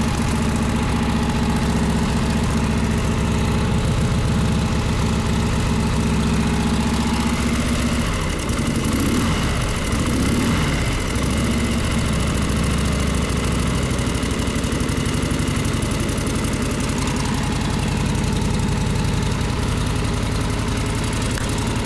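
1937 Harley-Davidson Knucklehead's 61-cubic-inch V-twin running on its first start after a frame-up restoration, idling steadily. About eight seconds in it is revved up and down a few times on the throttle, then settles back to idle.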